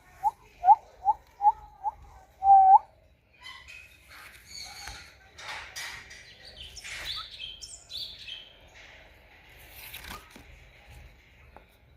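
Birds calling: a run of short rising notes repeated about two to three times a second, ending about three seconds in with one longer, louder note, then a jumble of higher, varied chirps.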